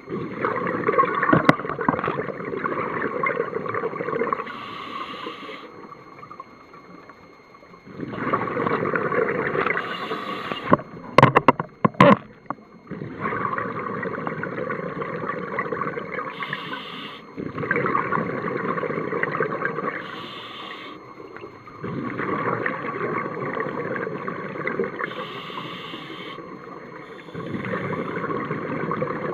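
Scuba diver breathing through a regulator underwater: bubbling exhalations of several seconds each, about six in all, alternating with short hissing inhalations. A few sharp clicks come about eleven seconds in.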